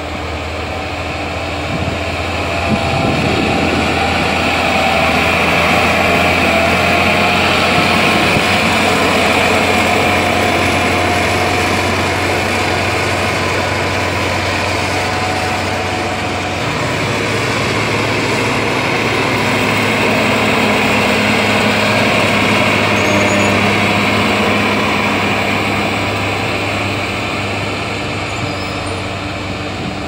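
Diesel engines of motor graders running steadily under load while they level loose road-base material. The sound swells twice as a grader works close by.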